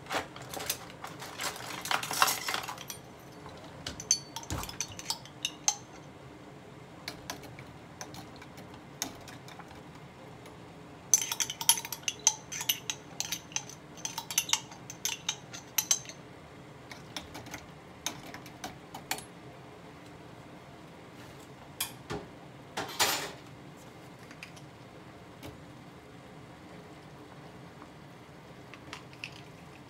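Metal kitchen utensils, a ladle and strainer, clinking and scraping against a stainless-steel stockpot in several bursts of clatter. The longest burst lasts about five seconds near the middle, and a short loud scrape comes about three quarters of the way through.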